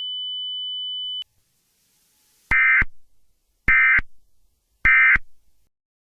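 Emergency Alert System end-of-message signal: three short, identical bursts of data tones about a second apart, the coded tone sequence that closes an alert. Before them a steady high-pitched tone runs on for about a second and cuts off suddenly.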